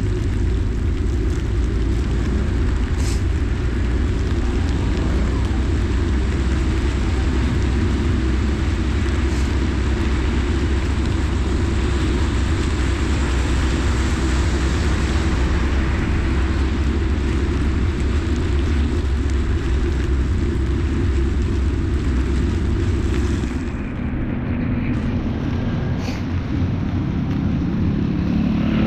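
Steady noise of riding a bicycle through rain on a wet street: a deep wind rumble on the microphone under an even hiss of rain and wet tyres. The rumble and hiss ease for a few seconds near the end.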